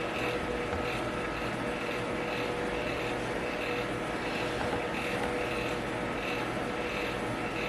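Electric fan running steadily: an even rushing noise with a steady hum under it.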